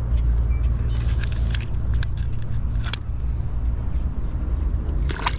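Steady low rumble with scattered small clicks and light rattles, in clusters from about one to three seconds in and again near the end.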